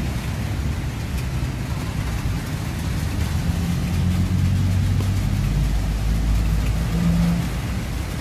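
A motor vehicle's engine running nearby, a low hum that grows louder about halfway through and eases off near the end, over faint rain noise.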